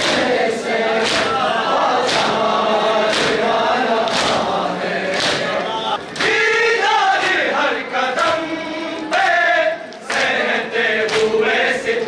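Men chanting a noha together, with the sharp slaps of their hands striking their chests (matam) in a steady beat of roughly one a second.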